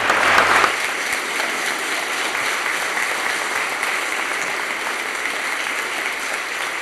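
Wedding congregation applauding, loudest in the first second while the last low note of the music dies away, then steady clapping.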